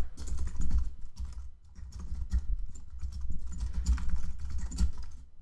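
Typing on a computer keyboard: an irregular run of key clicks as a line of code is entered.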